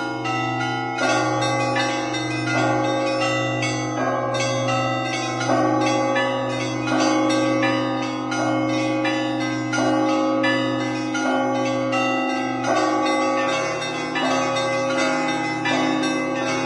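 Russian Orthodox church bells ringing in a peal (zvon): a deep bell hums underneath while middle and small bells are struck in a repeating pattern, a cluster of strokes about every one and a half seconds.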